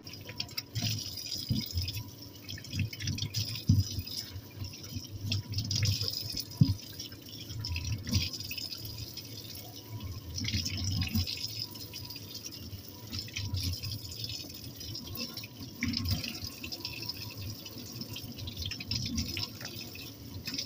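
Kitchen tap running onto bell peppers as they are rinsed by hand in a stainless steel sink, with irregular splashing and light knocks.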